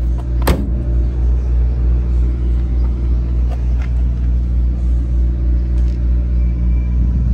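A car engine idling steadily, a continuous low rumble with a slight even pulse. A single sharp knock sounds about half a second in.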